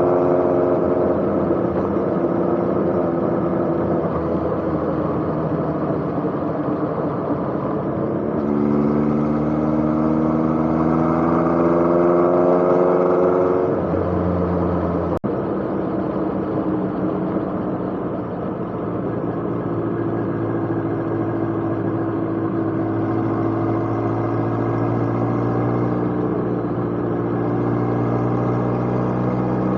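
Motorcycle engine running under way over wind noise, its pitch climbing steadily as it accelerates. The sound breaks off suddenly about fifteen seconds in, and an engine carries on at a steadier, slowly rising pitch.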